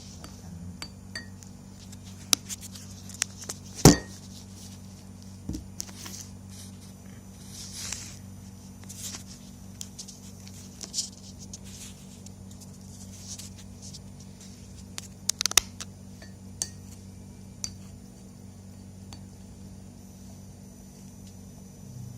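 Glassware and kitchen utensils clinking and knocking in scattered taps, with one loud knock about four seconds in and a cluster of clinks near the three-quarter mark, over a steady low hum.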